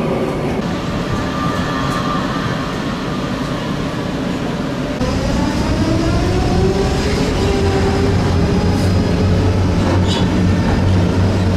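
Electric tram running on rails; about five seconds in, its motor whine rises in pitch as it picks up speed, then holds steady.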